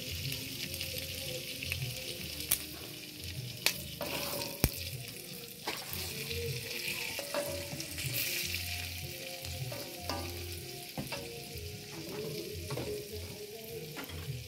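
Food sizzling in a wok while a metal spatula stirs and scrapes through it, with sharp clinks of the spatula against the pan every second or so.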